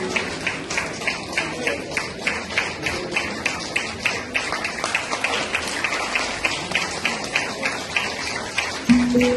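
Steady rhythmic clapping, about three claps a second. Near the end a held musical note comes in.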